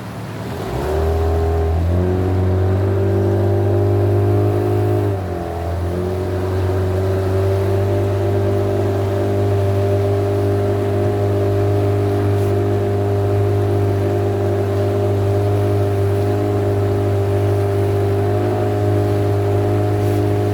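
Boat motor running under way, easing off and picking up again at the start and briefly around five seconds in, then holding a steady speed.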